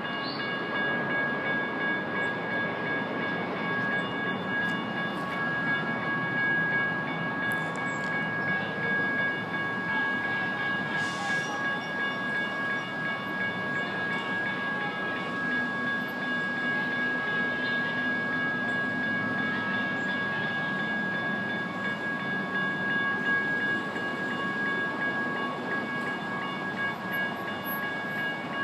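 General Signals Type 1 electronic crossing bell ringing without a break, a steady high tone that warns of an approaching light rail train while the gates are down. Underneath is a steady wash of road traffic noise.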